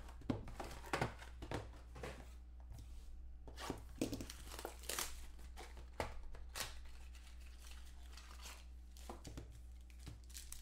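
Hands unwrapping and opening a sealed box of football trading cards: plastic wrapping crinkling and tearing, with short taps of the cardboard box. A run of crinkles and taps, busiest in the first half and sparser later.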